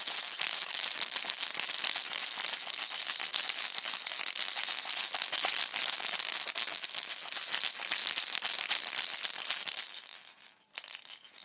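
Infantino baby rattle shaken continuously, a dense, rapid rattling that stops about ten seconds in, followed by one more brief shake.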